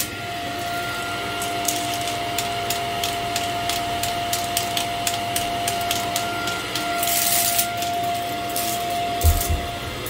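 Shark upright vacuum cleaner running steadily with a constant whine as it is pushed over berber carpet, with scattered sharp clicks throughout, a brief hiss surge in the second half and a few low thumps near the end.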